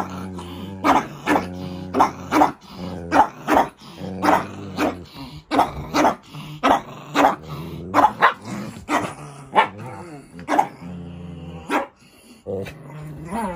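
Shih tzu dogs barking angrily in quick, repeated barks, about one to two a second, with low growling held between them: a quarrel over a dog bed.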